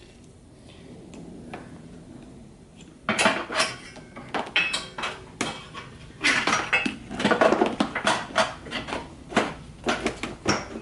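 Metal objects clinking and clattering in quick, irregular knocks, starting about three seconds in.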